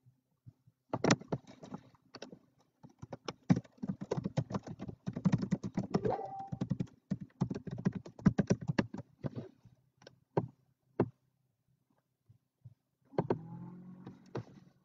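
Typing on a computer keyboard: a quick, irregular run of key clicks for several seconds, thinning to a few single clicks near the end.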